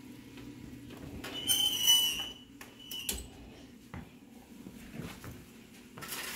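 Metal oven rack squealing on its rails as it is pushed back into the oven, about a second in, then a shorter squeak. Near the end, aluminium foil crinkles as it is pulled back off a meatloaf pan.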